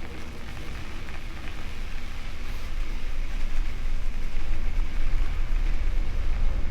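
Wind buffeting the microphone of a bike-mounted camera, over the rustle of bicycle tyres rolling on a gravel road, slowly growing louder.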